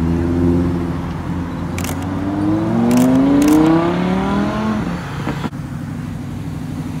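A car engine accelerating away, its pitch rising steadily for about two seconds, over a low rumble of other engines. The rising note ends abruptly at about five and a half seconds, leaving a lower steady engine rumble.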